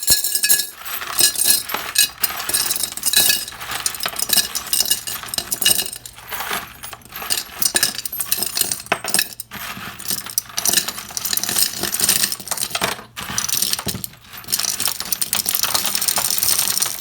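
A pile of loose small metal screws and nuts rattling and clinking in a dustpan almost without a break, with a few brief pauses.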